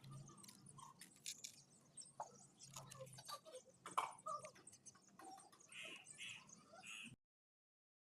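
Near silence: faint scattered clicks and ticks with a few small chirps over a low hum, cutting to dead silence about seven seconds in.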